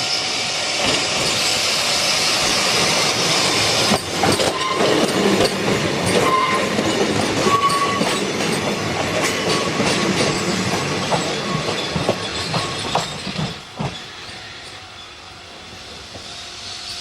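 A Kotoden Shido Line electric train running past. Its wheels clack over the rail joints and squeal briefly a few times, and the sound drops away about fourteen seconds in.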